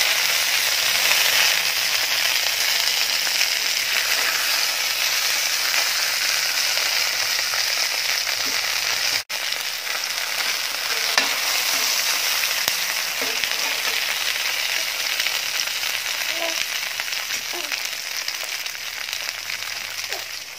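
Banana-leaf-wrapped pearl spot (karimeen) fish parcels sizzling steadily in hot oil in a frying pan, frying on their second side after being turned over. The sizzle breaks off for an instant about nine seconds in.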